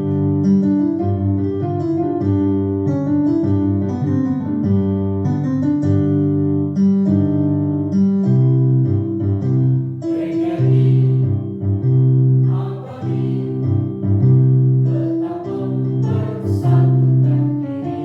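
A children's school choir singing to electronic keyboard accompaniment; the first half is mostly sustained keyboard chords, and the voices come in more strongly about halfway through.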